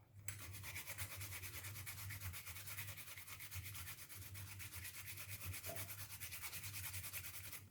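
Garlic clove being grated on the fine side of a hand grater: a steady run of quick, even scraping strokes.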